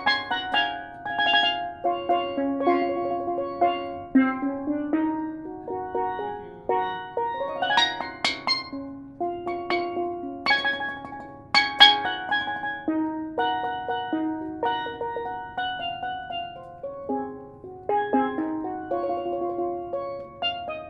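Solo steel pan played with rubber-tipped sticks: a freestyle melody of quick, ringing struck notes. About seven seconds in there is a fast rising run of notes.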